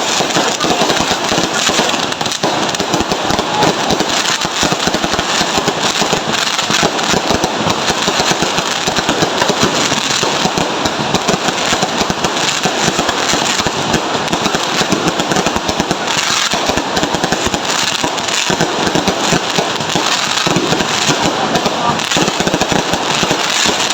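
Fireworks and firecrackers going off without let-up: a dense, continuous crackle of many small bangs.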